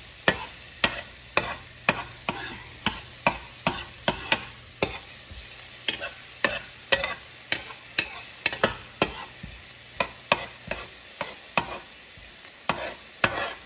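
Metal spoon scraping and clicking against a square copper-coloured pan as minced garlic and onion are stirred in a little hot oil, with a light sizzle underneath. The clicks come irregularly, about two a second.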